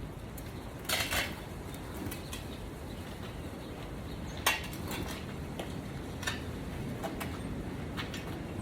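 Strong wind rumbling on the microphone, with a few sharp clatters and knocks, a loud one about a second in and another about four and a half seconds in.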